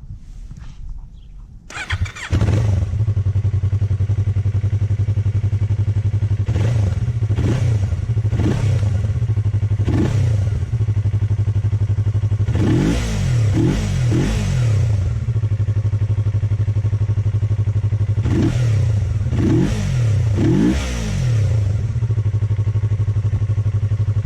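Yamaha MT-03 motorcycle's parallel-twin engine starting about two seconds in, then idling. The rider blips the throttle again and again, singly and in quick groups of two or three, each rev rising and falling back to idle.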